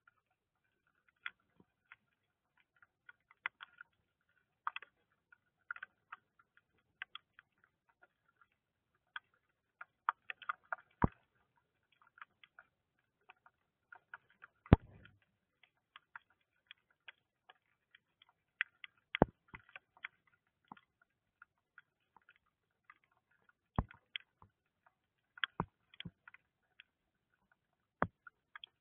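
Hailstones and raindrops striking the camera housing: faint, irregular sharp ticks, with a handful of louder knocks scattered through.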